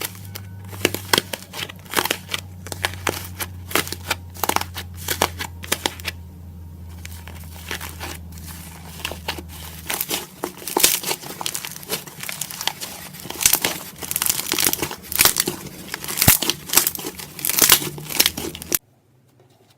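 Slime being squished and pressed by hand, making a dense run of crackling clicks and pops. The sound cuts off abruptly near the end.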